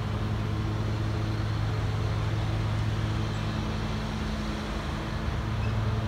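A steady low machine hum, a constant deep drone over a wash of noise, from a motor running without change.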